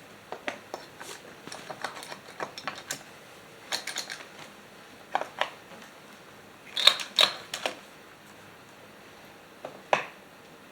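Irregular light clicks and taps of small parts and hand tools being handled, in small clusters with the sharpest pair of knocks a little past the middle.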